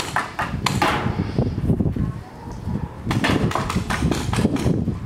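Paintball markers firing in sharp pops: a few scattered shots in the first second, then a rapid run of shots in the last two seconds, over a steady low rumble.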